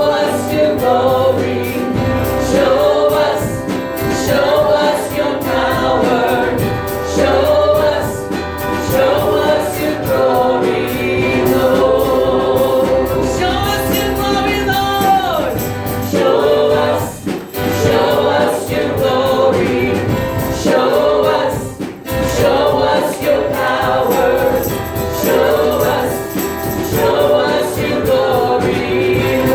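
A choir singing a gospel worship song with musical accompaniment, the singing dropping out briefly twice in the second half.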